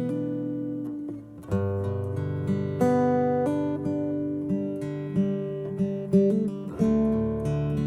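Acoustic guitar music, plucked and strummed chords changing every second or so.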